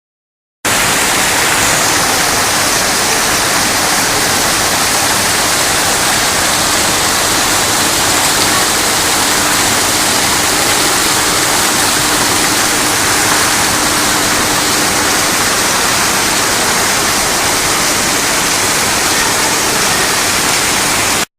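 Shopping-centre fountain waterfall: water pouring steadily into a basin, a loud even rush that cuts off suddenly near the end.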